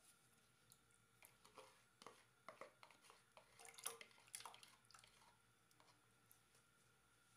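Faint drips and small splashes of soaked jaggery water poured from a bowl into a pot of tamarind pulp, with scattered light clicks of a spoon scraping the bowl, busiest in the middle.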